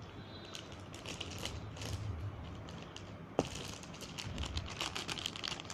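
Hard disk's packaging being worked open by hand: scattered plastic crackles and clicks, with one sharp click about three and a half seconds in and denser crackling near the end.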